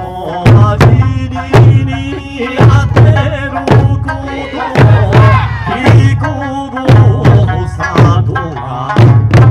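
Eisa drumming: large Okinawan barrel drums (ōdaiko) struck together on a steady beat about once a second, with sharper drum strokes in between. Under the drums runs an Okinawan folk song with singing.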